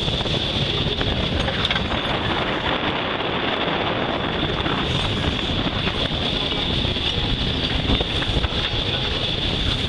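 Steady wind buffeting the microphone on the foredeck of a sailboat under sail, mixed with the rush of the sea along the hull.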